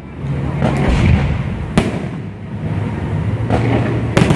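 Aerial firework shells bursting: sharp bangs over a continuous low rumble from the display. The bangs come at about one, two and three and a half seconds in, with a close pair near the end.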